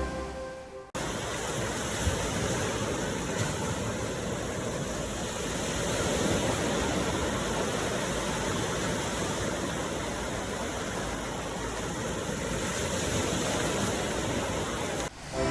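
Steady rush of ocean surf, swelling gently now and then. Background music fades out in the first second and comes back in just before the end.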